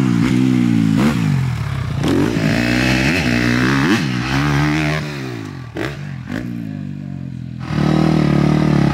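Dirt bike engine revving hard, its pitch climbing and dropping again and again as the rider works the throttle and gears through jumps. It drops back and goes quieter about five seconds in, then comes back loud near the end.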